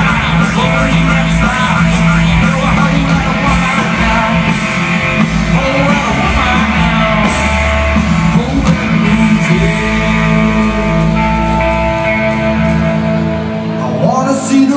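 Live rock band playing through an arena PA, led by guitar over a heavy bass line, with the hall's echo. The bass drops out about two seconds before the end.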